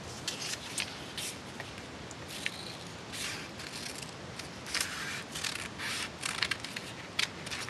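Scissors snipping through folded paper along drawn lines: a run of short, irregular snips, with the paper rustling as it is turned between cuts.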